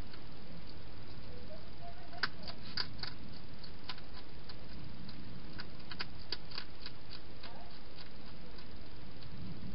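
A wild hedgehog feeding at a bowl inside a plastic feeding box: irregular crisp clicks of chewing and crunching, in clusters, over a steady hiss.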